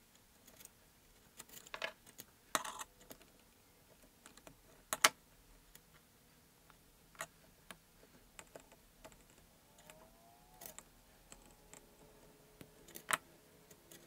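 Irregular small clicks and snaps of plastic T-tap splice connectors being squeezed shut with pliers and spade connectors plugged in, amid quiet wire handling; the sharpest snap comes about five seconds in.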